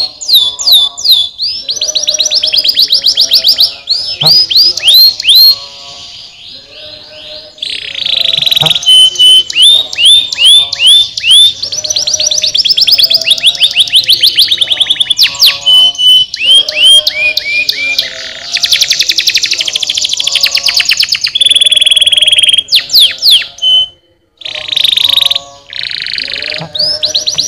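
Domestic canary singing a long song of rapid trills and fast repeated down-sweeping notes, switching from one rolling phrase to the next every second or two, with a brief break about three quarters of the way through.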